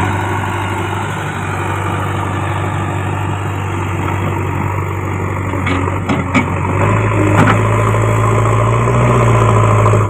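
Diesel engine of a JCB 3DX backhoe loader running steadily as the machine works its front loader bucket through soil, with a few sharp knocks about six to seven and a half seconds in. The engine gets louder from about seven seconds in and again near the end.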